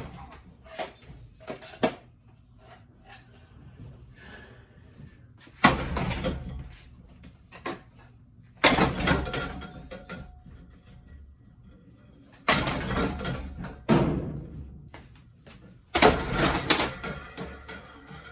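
Ceiling fan being smashed: four sudden loud crashes a few seconds apart, each followed by a second or two of clattering and rattling, with small knocks and clicks between.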